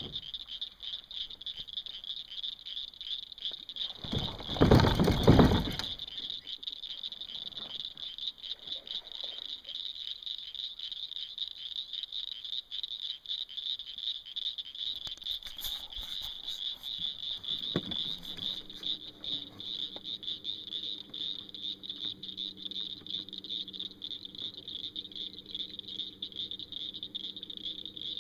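Steady high-pitched chorus of calling frogs. About four seconds in, a loud rush of noise lasts about two seconds. From about eighteen seconds a low, steady hum of several tones joins in.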